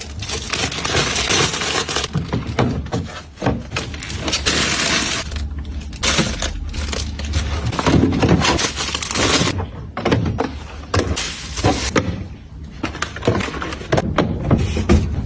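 Household items being handled and put away: several spells of rustling, with frequent clicks and knocks of things being set down.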